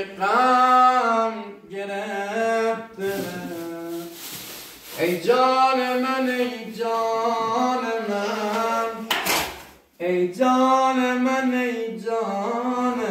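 A single voice singing slowly in long, held, slightly wavering notes, phrase after phrase, with a brief hissing patch a few seconds in and a short pause near the ten-second mark.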